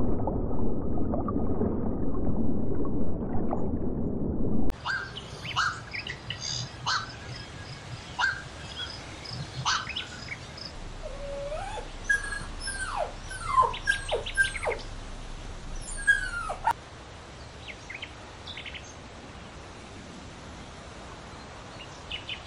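A loud, muffled low rushing noise that cuts off suddenly after about four and a half seconds. Then birds chirping in many short, quick downward-sweeping notes over a steady hiss, thinning out to faint background noise after about seventeen seconds.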